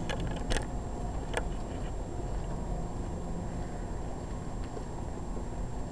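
Steady low rumble of wind on an outdoor microphone, with a few light clicks in the first second and a half.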